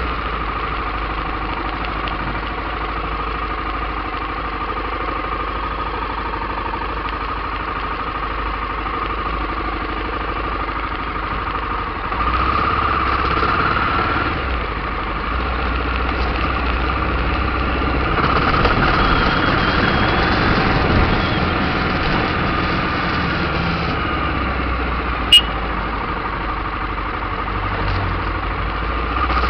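Aprilia Pegaso 650 Cube's single-cylinder engine running while riding slowly, heard from a camera mounted on the bike. It rises in pitch and loudness as the bike picks up speed about twelve seconds in, and again around eighteen seconds; one sharp click sounds near the end.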